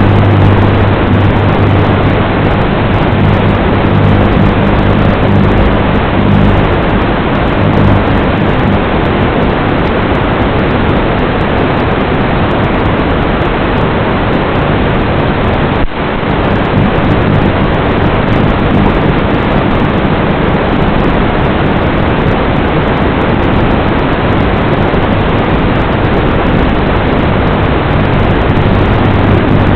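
Loud, steady hiss like radio static, with a low hum that comes and goes. The noise drops out for a moment about sixteen seconds in.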